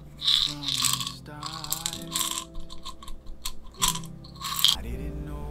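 A small plastic flip-top bottle handled and turned in the hand, giving several short crunchy rustles and rattles, over soft background music with singing.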